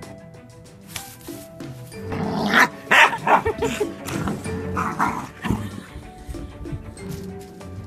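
Background music with an English bullmastiff puppy barking: a run of loud barks from about two to four seconds in, and another around five seconds in.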